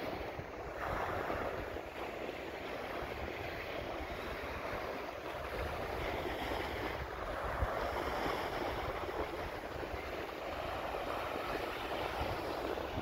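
Small waves washing onto a sandy beach, a steady surf hiss, with wind buffeting the microphone.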